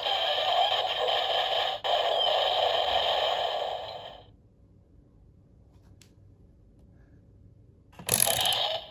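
Electronic sound effects from a Zero-One Driver toy belt's small speaker: a noisy, siren-like effect that stops about four seconds in. After near silence, a new loud burst of effects begins near the end.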